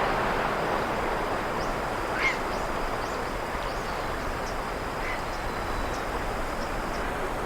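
Sea waves washing steadily on the shore, with insects trilling in a thin, steady, high tone. A few short chirps come through, the loudest about two seconds in.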